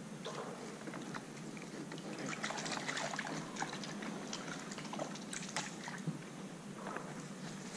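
Faint water lapping and trickling around a plastic kayak, with scattered small clicks and drips.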